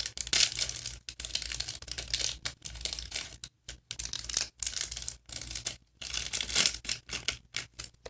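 Small toy packaging being torn open and crinkled by hand, in irregular rustling bursts with short pauses.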